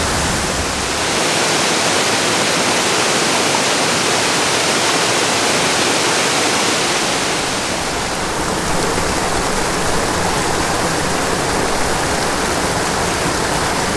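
Steady rush of a steep, tiny mountain creek cascading in small waterfalls over granite slabs. The tone of the rush shifts about eight seconds in.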